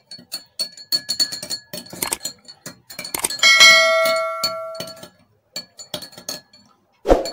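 A metal teaspoon clinking rapidly against the inside of a drinking glass while stirring bicarbonate of soda into water. About a third of the way in, a louder bell chime from a subscribe-button notification overlay rings and fades over about a second and a half. A single thump comes near the end.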